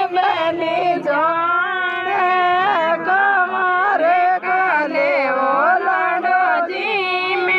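A woman singing a song in long, wavering held notes that slide up and down in pitch.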